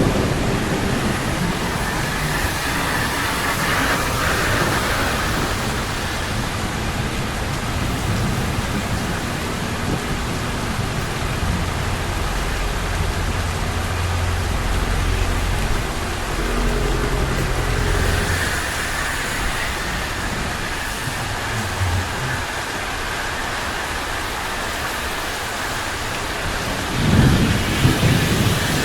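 Steady rain falling on a city street, a continuous hiss, with a low rumble about halfway through and a louder low surge near the end.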